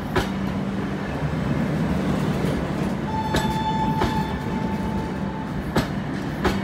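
Train running on rails: a steady rumble with a few sharp clicks, and a thin steady whine from about three seconds in until about five and a half seconds in.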